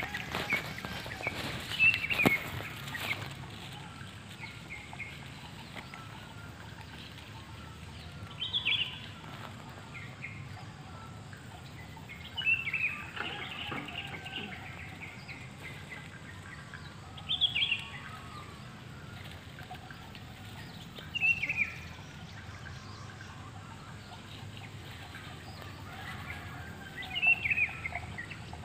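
Birdsong: short, falling call phrases that recur about every four to five seconds over a steady outdoor background.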